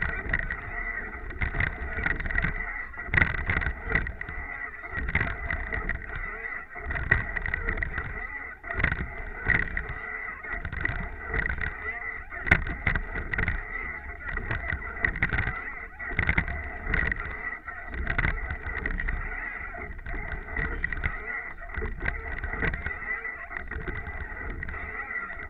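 Rowing eight under way, heard from the bow: water rushing along the hull, with a knock or surge about every one and a half to two seconds as the crew take their strokes, and a steady high tone running through it.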